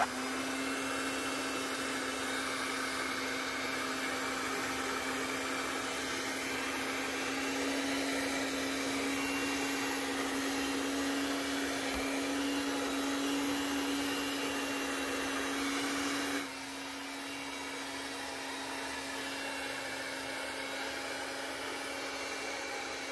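Black+Decker electric hand mixer running steadily on low speed, its beaters shredding cooked chicken breasts in a slow cooker full of sauce. The motor's hum gets quieter about sixteen seconds in and keeps running.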